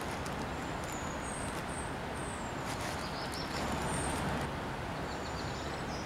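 Outdoor countryside ambience: a steady low rushing background with small birds chirping in short, high notes every second or so.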